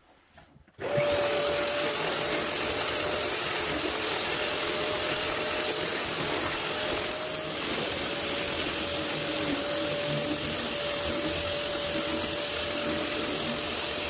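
An Eibenstock EPF 1503 renovation wall miller with a Kärcher vacuum extracting through it, starting abruptly about a second in and then running with a steady whine. From about halfway a higher hiss joins as the cutter star grinds old paint and plaster off the wall.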